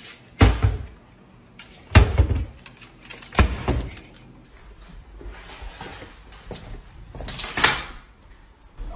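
Kitchen cabinet doors banging shut three times, roughly a second and a half apart, each a sharp knock with a short ring after it. A brief scuffing noise follows near the end.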